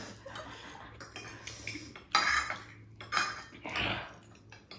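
Eating utensils clinking and scraping against a bowl while spicy ramen noodles are eaten, in a few short bursts in the second half.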